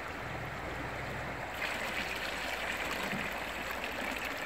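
Shallow river running over stones. From about a second and a half in, water splashes and trickles as it pours out of a plastic container back into the river while pink salmon roe is rinsed in it.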